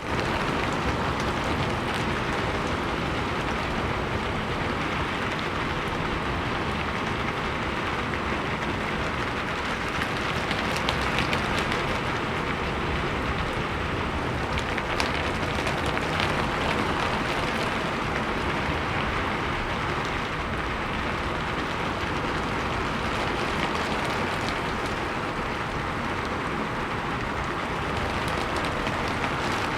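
Steady rain falling on a roof, an even hiss with scattered sharper drop ticks.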